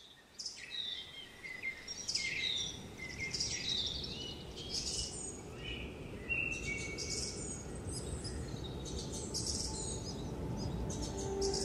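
Many songbirds chirping and trilling at once, a dense overlapping chorus of short high calls, over a low steady outdoor rumble.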